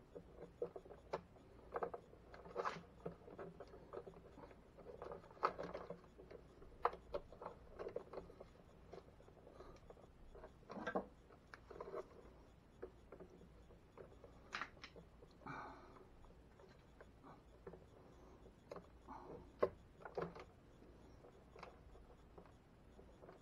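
Faint, irregular clicks, scrapes and rustles of electrical wires being bent and pushed into a plastic junction box by hand, with the occasional tap of hand tools.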